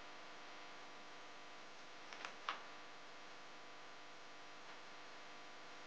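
Three small hard-plastic clicks about two seconds in, the last the loudest, as Nerf blaster shell parts are fitted together, over a faint steady hum.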